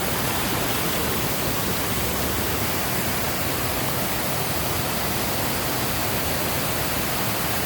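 Waterfall rushing steadily, a constant full roar of falling water.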